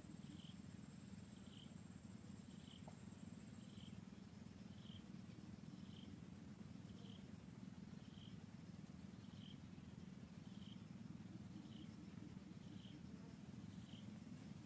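Faint outdoor ambience: a steady low rumble, with a short high chirp repeating about once a second and a thin high whine that stops about four seconds in.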